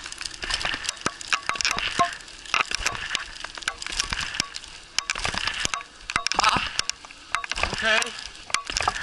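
Mountain bike rattling and clicking over a rough sandy dirt track while towed by two sled dogs, with tyre crunch and hiss and irregular sharp knocks from the frame and handlebar. A short wavering high-pitched sound comes in twice in the second half.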